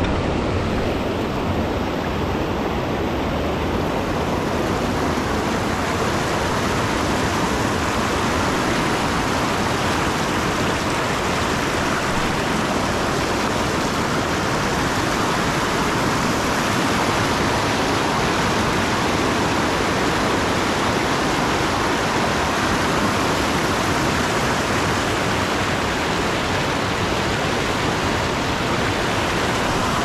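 River rapids: a steady, unbroken rush of whitewater.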